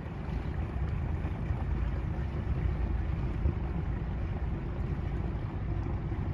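Sabre Express 38 motor yacht running slowly past at low speed: a steady low rumble mixed with wind on the microphone.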